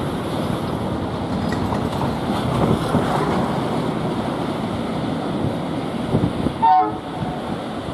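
ALCO diesel locomotive and its passenger coaches rolling slowly past at low speed, engine running, under a steady rush of wind and surf. A brief, loud pitched sound stands out near the end.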